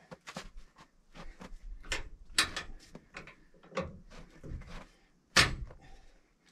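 Irregular knocks and clunks, one or two a second, with a loud one about five seconds in: a vehicle jack being worked under a heavy truck bed and jamming.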